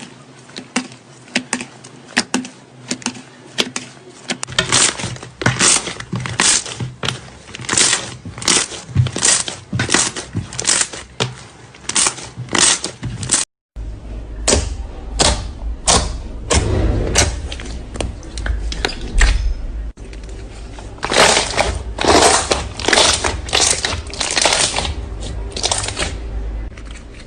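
Slime being squeezed and poked, giving rapid runs of sharp clicks and pops. A cut about halfway through leads to another slime clip with a low hum underneath.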